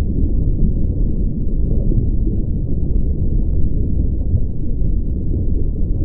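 Underwater ambience in the open sea: a steady, muffled low rumble of water with no distinct events.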